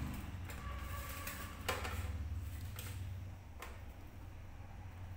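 A halved watermelon being handled over a steel tray: a few light knocks and rustles, the clearest about a second and a half in, over a steady low hum.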